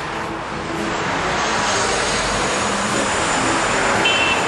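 Traffic noise: cars passing in a steady rush that swells over the first second or so, given as an unpleasant sound. A brief high-pitched tone comes near the end.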